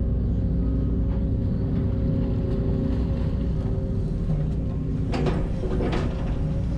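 Heavy construction machine's diesel engine running steadily, with a short burst of metallic clanking and scraping about five seconds in.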